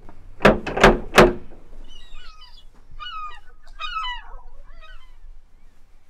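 Three loud knocks on a wooden front door in quick succession, followed by a bird twittering for a few seconds.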